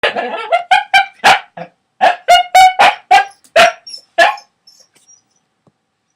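A dog barking in a rapid run of about a dozen short, sharp barks, stopping about four seconds in.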